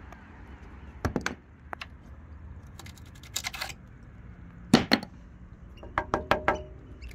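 Sharp clicks and cracks of flaky rust and corroded steel plate being snapped and picked off a rusting boat hull by hand, in short clusters, the loudest a little under five seconds in.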